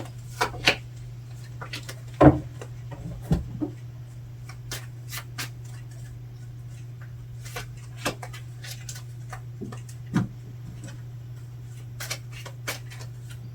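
Tarot cards handled and laid on a table: scattered light taps and clicks, with a few louder knocks, over a steady low hum.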